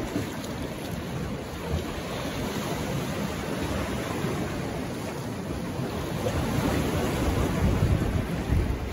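Ocean waves washing against shoreline rocks, with wind buffeting the microphone: a steady rushing noise that swells a little near the end.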